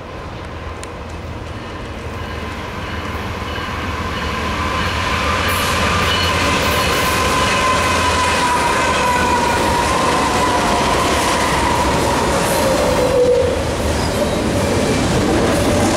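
A BNSF intermodal train led by four GE diesel locomotives (an ES44C4, two C44CW-9 Dash 9s and an ES44DC) approaching fast and passing close by. The sound grows louder over the first several seconds, then holds loud as the double-stack well cars rumble and clatter past. A high whine falls slowly in pitch as the locomotives go by.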